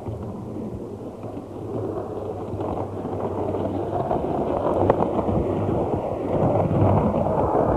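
A tram running on its rails: a steady low hum under a rumble that grows louder from about two seconds in.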